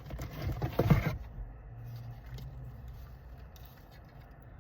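Rustling and scraping of items being handled and pulled out of a cardboard box, loudest about a second in, then only a faint low hum.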